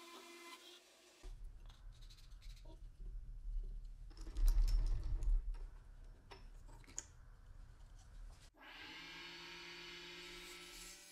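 Band saw running for about a second, then low rumbling with scattered knocks and clicks, loudest about halfway through. Near the end a wood lathe motor spins up with a rising whine and settles into a steady run.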